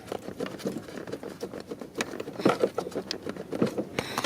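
A string of small irregular clicks and taps from hands working at plastic relays and the relay box.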